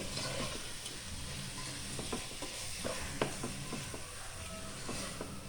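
A spoon stirring onion-tomato masala with ground spices in a pan over a low sizzle, with scraping and several sharp clicks of the spoon against the pan.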